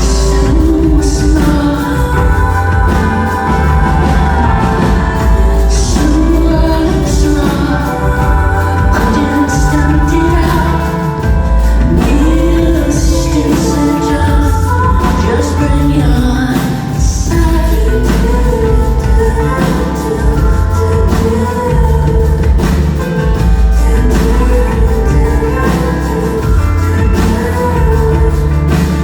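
A pop-rock song with a woman singing over a full band, with a heavy bass line and a steady beat.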